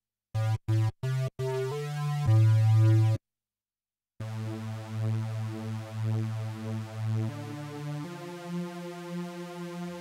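Cherry Audio DCO-106 software synthesizer playing lead presets. A 'Square Stack' lead plays four short staccato notes, then a couple of held notes. After a one-second gap, a 'Super Saw' lead holds long notes that step to new pitches around seven and eight seconds in.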